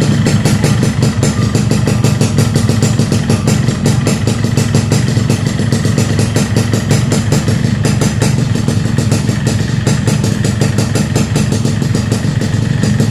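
Yamaha RX-King two-stroke single-cylinder engine idling steadily with a fast, even beat. Its piston has been heat-expanded and pressed to take up clearance in a worn cylinder that needs oversizing: the rough clattering is somewhat reduced, though a little piston noise can still be heard.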